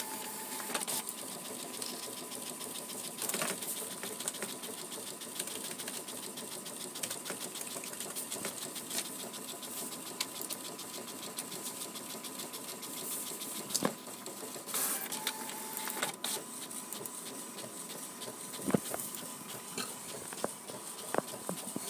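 Desktop printer printing a page: its mechanism runs with a fast, even chatter over a steady whine, with a few sharp clicks from the paper feed.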